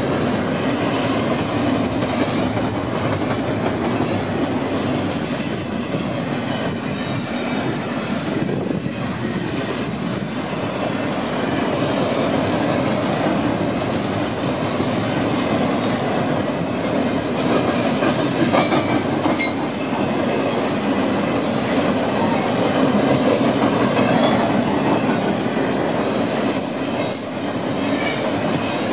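Double-stack intermodal freight train's container well cars rolling past: a steady rumble and clatter of steel wheels on rail, with brief high wheel squeals about two-thirds through.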